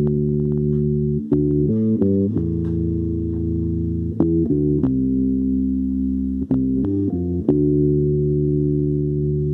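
Electric bass guitar played fingerstyle: long held notes, each ringing for a second or two, with short runs of quicker note changes in between.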